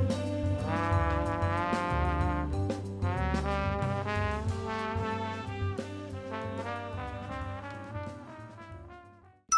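Music: a saxophone melody over a backing track with bass and drums, fading out near the end.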